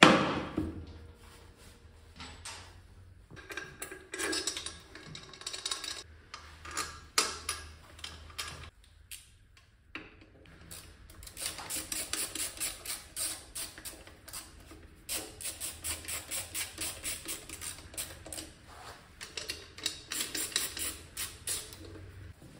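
Scattered metal clinks and knocks of hand tools, then from about halfway in, three runs of rapid, even clicking from a ratchet wrench driving in bolts on a Honda PCX 125 scooter during a variator and belt change.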